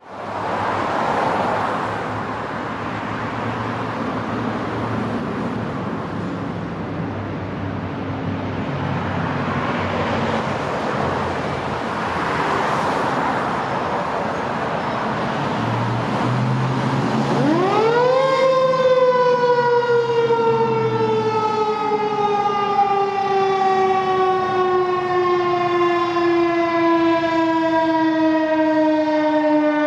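Traffic noise, then about 17 seconds in a Federal Signal 2001-130 electromechanical warning siren winds up quickly in a short growl test and slowly winds down, one tone falling steadily in pitch.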